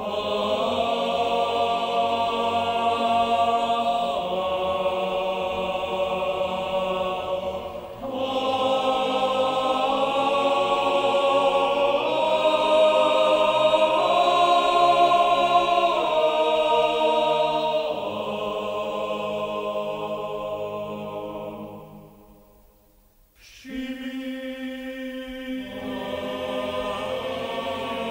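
Choir singing slow, held chords in a film score, moving to a new chord every few seconds. The sound fades almost away about 22 seconds in, and a softer chord enters a second or so later.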